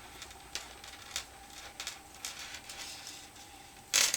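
Faint handling noises as a hanging craft piece is adjusted by hand: scattered small clicks and rustles, with a louder rustle near the end.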